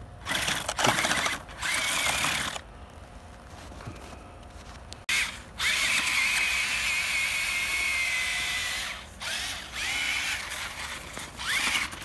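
Monster Jam Megalodon RC monster truck's electric drive motor whining in bursts as the throttle is worked in snow. There are several short spurts, then one longer steady run about six to nine seconds in, and two more short spurts near the end.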